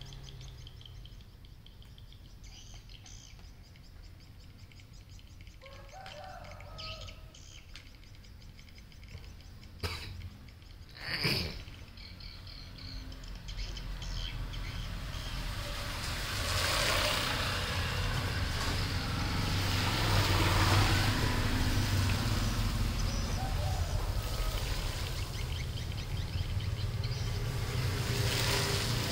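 Background noise: a few short chirps in the first half and a brief sharp sound near the middle, then a rushing noise with a low rumble that swells about halfway through and holds.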